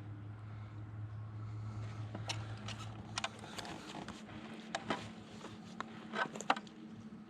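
Handling noise from a caught bass and fishing gear in a canoe: a scattering of sharp clicks and knocks over a low steady hum, the loudest knocks near the end.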